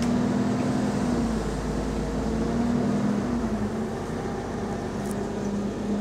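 Double-decker bus running, heard from inside the passenger saloon: a steady whine from the engine cooling fan that wavers slightly in pitch, over a low engine rumble that eases about two-thirds of the way through.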